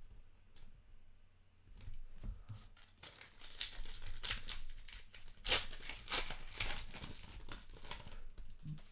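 A trading-card pack's wrapper being torn open and crinkled. A few light clicks come first, then a dense crackle of tearing and crumpling from about three seconds in.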